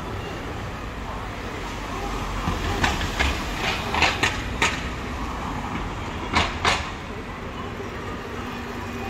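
Busy city street background: a steady rumble and hiss of traffic, broken by a few sharp clacks around the middle.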